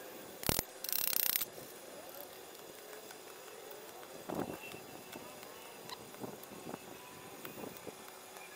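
Stick (arc) welding on steel square tubing: a sharp tap as the electrode is struck on the metal, then a short crackling hiss of the arc lasting about half a second, a single tack weld. Later, a metal clatter and light clinks as hand tools are handled.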